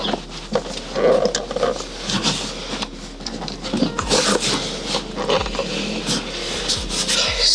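Rustling, scraping and clicking as a pram carrycot's fabric hood and frame are handled and fitted, with a paper instruction leaflet rustling.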